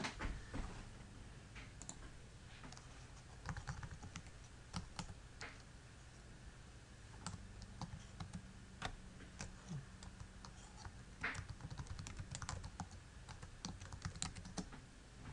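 Computer keyboard being typed on slowly: irregular single keystrokes and short runs of key clicks as a web address is entered.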